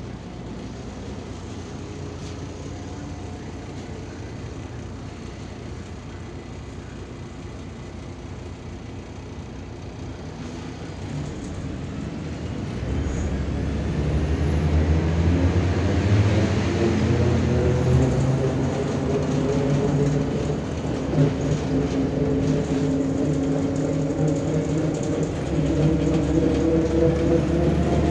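MAZ-103.465 city bus engine heard from inside the passenger cabin by the doors: running steadily and fairly quietly at first, then a little under halfway through it grows louder and its note rises as the bus accelerates, with two brief dips later on where the gears change.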